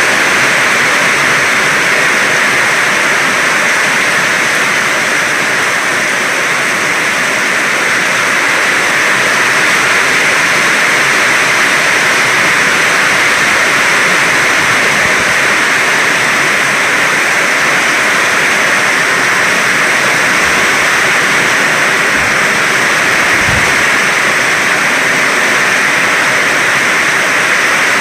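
Heavy rain pouring down, a loud steady hiss with no let-up, with a couple of faint low thuds near the end.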